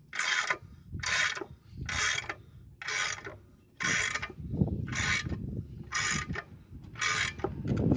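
Ratchet wrench turning the screw of a C-clamp ball-joint press in even strokes, a rasping sound about once a second. The press is forcing a new lower ball joint into the steering knuckle, and a lower grinding joins in about halfway through.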